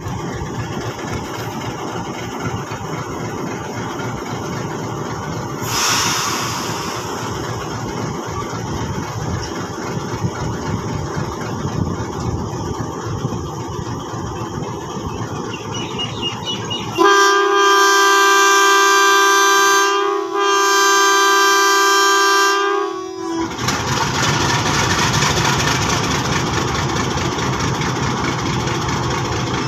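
Pakistan Railways HBU-20 diesel-electric locomotive running at the head of a freight train, with a brief hiss about six seconds in. In the middle come two long blasts of its multi-tone air horn, about three and two and a half seconds long. After the horn the engine runs louder as the train sets off.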